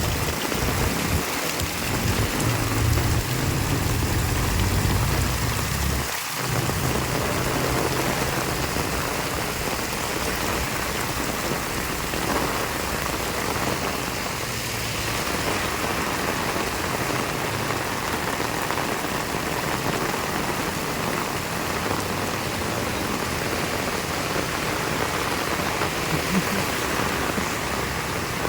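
Heavy rain falling steadily, a dense even hiss. A low rumble sits underneath for the first six seconds or so, then stops.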